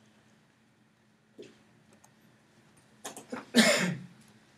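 A few soft clicks, then a single cough about three and a half seconds in, over a quiet room with a faint steady hum.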